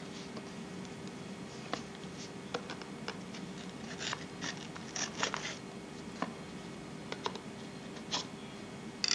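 A knife blade cutting and scraping along the edge of a cardboard phone box: irregular scratches and clicks, busiest about halfway through, over a steady low hum.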